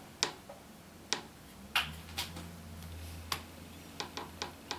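Irregular sharp clicks, about nine in all, from the receiver's push buttons and power switch being handled during a factory reset, with a faint low hum through the middle stretch.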